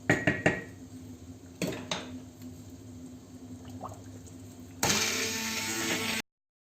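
A few knocks of cookware being handled, then nearly five seconds in an electric blender motor switches on and runs steadily, puréeing the cooked leeks and vegetables for soup, before the sound cuts off suddenly.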